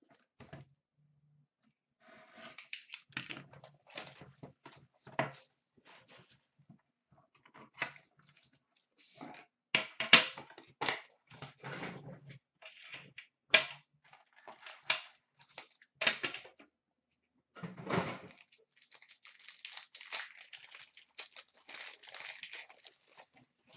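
A sealed box of hockey trading cards being unwrapped and opened by hand: irregular clicks, taps and crinkles of the shrink-wrap, cardboard and plastic, with a longer stretch of steady plastic rustling near the end.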